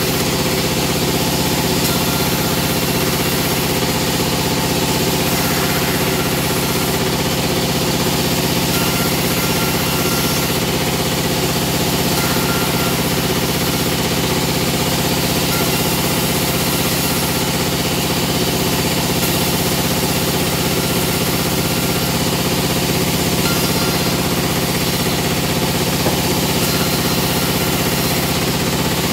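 Plywood veneer peeling machine running with a loud, constant mechanical drone and steady hum that does not change.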